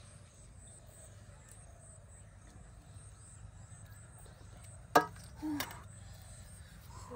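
A single sharp clack about five seconds in, then a brief rattle, as something knocks against a steel dish set on the grass, over a quiet outdoor background.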